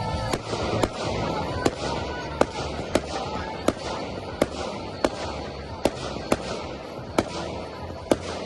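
Category F4 display fireworks going off: a quick, irregular series of sharp bangs, about one or two a second, over a steady crackling fizz.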